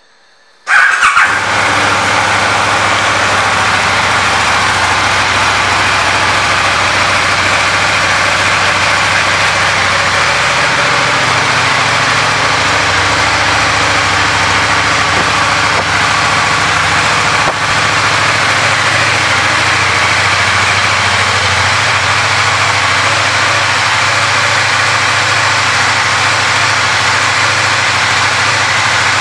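2014 KTM 1290 Super Duke R's V-twin engine starting about a second in, then idling steadily.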